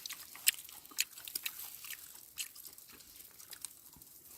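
Someone chewing and biting into grilled steak close to the microphone, as a few irregular crisp clicks and crunches.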